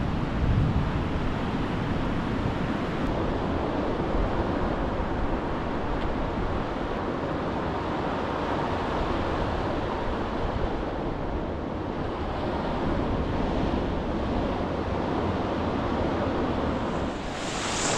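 Ocean surf breaking and washing in over the shallows, a steady rushing noise, with wind buffeting the microphone.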